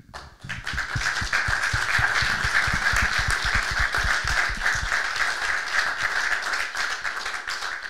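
Audience applauding: a crowd's clapping starts about half a second in, builds within a second and holds steady, easing off near the end.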